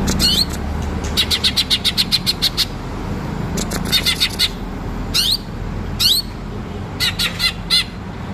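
Cucak ijo (green leafbird) singing: fast trains of sharp, high repeated notes, about eight a second, broken by single rising whistled notes.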